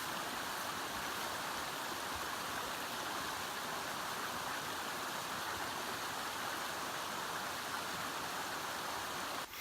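Steady rushing of flowing water, an even noise that holds level and cuts off suddenly near the end.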